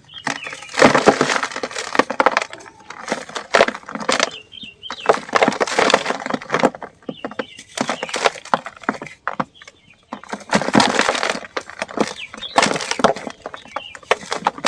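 Dry sand-and-cement clumps being crumbled and crushed, breaking apart in repeated bursts of crackling, each lasting about a second with short pauses between.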